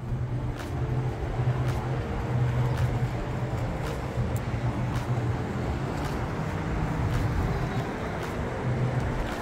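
Steady engine hum over a constant outdoor rumble, with faint light ticks about once a second.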